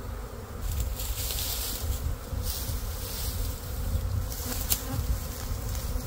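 Honeybee swarm buzzing in the air, many bees flying after the cluster has been knocked loose from its branch. Dry leaves and brush rustle and crackle a few times, with one sharp snap near the end.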